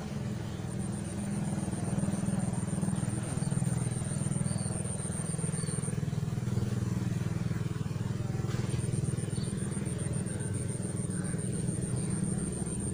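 A small engine running steadily with a low, even drone. A thin, high pulsing whine stops about halfway through and comes back.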